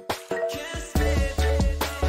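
Background music with a steady beat, deep bass and drums; the bass drops out for about the first second, then comes back in.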